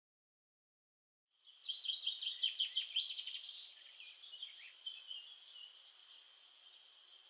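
Silence, then from about a second and a half in a burst of rapid, high bird chirps and trills over a steady high insect chirring. The chirring carries on faintly after the birds die down.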